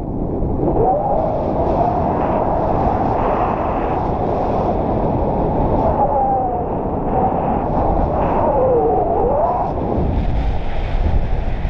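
Rushing air buffeting the camera's microphone in paraglider flight, a loud, steady rush. A whistling tone slides up and down through it a few times.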